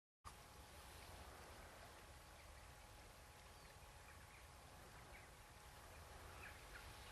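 Faint outdoor ambience: a steady low hiss and rumble, with a few faint, short bird chirps scattered through it.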